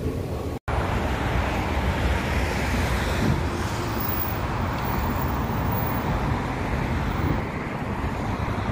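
Steady city street traffic noise from cars on a multi-lane road, with a low rumble. It cuts to silence for a moment less than a second in.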